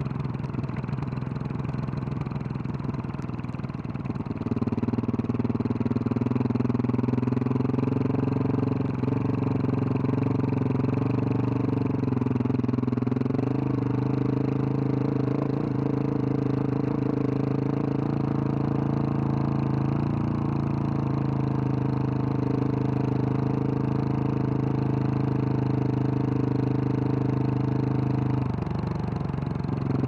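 A 2021 Husqvarna 701 Supermoto's single-cylinder engine, fitted with a Wings aftermarket exhaust, pulling the bike along a dirt trail. It is a little quieter and rougher for the first few seconds, then settles into a steady drone, with a brief drop in pitch near the end before it picks back up.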